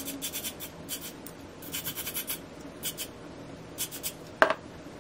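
Aerosol hairspray can spritzing in short hissing bursts, in several quick clusters. About four and a half seconds in comes a single sharp click, the loudest sound.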